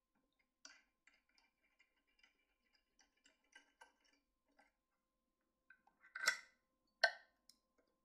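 Faint scattered clicks and small metal taps from hands adjusting a jointed metal holding arm on a dental forming machine, with two louder sharp clicks about six and seven seconds in.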